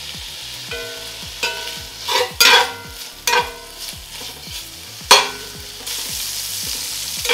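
Diced thick-cut bacon sizzling in a cast-iron skillet as a metal slotted spatula stirs it, with several loud scrapes of the spatula against the pan. The sizzle grows stronger near the end.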